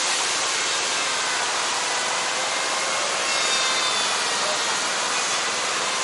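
Steady rushing of a waterfall pouring down tiered limestone cascades into pools, an even, unbroken roar.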